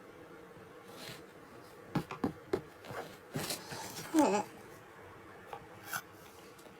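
Quiet handling noises: a few light clicks and taps about two seconds in, then a brief faint voice sound about four seconds in.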